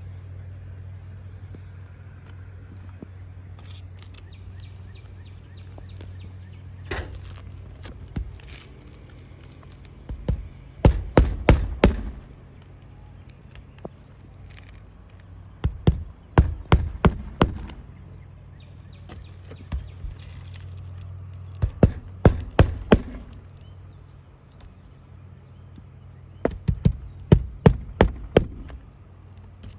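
Hammer blows driving nails for a roof repair, coming in four bursts of several quick strikes each, over a steady low hum.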